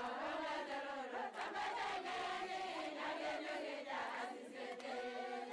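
A group of voices singing together, several pitched lines moving at once.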